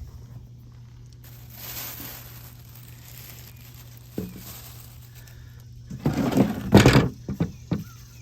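Plastic shopping bag crinkling and rustling as it is handled, with a few knocks and scrapes; the loudest rustling comes about six to seven seconds in. A steady low hum runs underneath.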